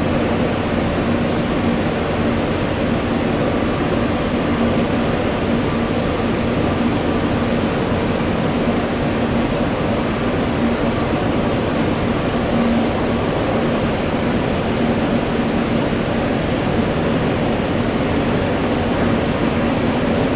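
Steady jet engine noise: an even rush with a faint low hum that holds the same loudness throughout.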